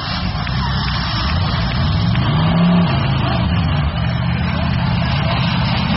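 Demolition derby car engines running loudly, one revving up about two seconds in and easing back down.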